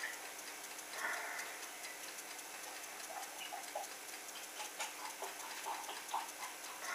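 Home-brewed IPA poured slowly from a 1.5-litre plastic bottle into a glass: a faint pouring hiss with scattered small clicks and pops as the carbonated beer foams up.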